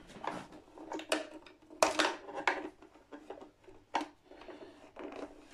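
Scattered clicks, taps and rustles of hands working parts and wiring inside an Epiphone Sheraton II's hollow body, with a few sharper knocks about two seconds in and again near four seconds.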